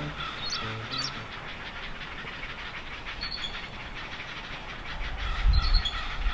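Guitar music fading out in the first second, then an outdoor background hiss with a few faint high chirps and a low rumble about five seconds in.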